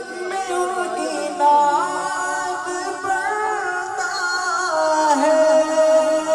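A male reciter singing a naat into a microphone, holding long, wavering notes that slide between pitches, with no clear words.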